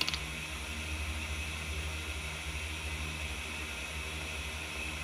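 Steady low hum with a hiss over it, and a brief click right at the start.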